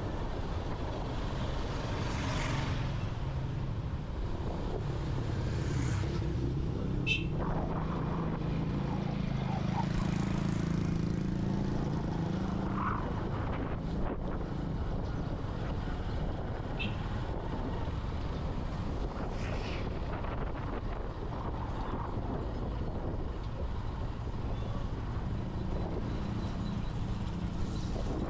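Street traffic: a small motor engine running steadily, swelling briefly about eight to twelve seconds in, with a few short high chirps.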